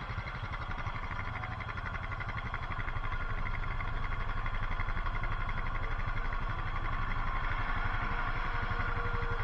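Off-road bike's engine idling steadily, its rapid even firing pulses growing a little louder from about three seconds in.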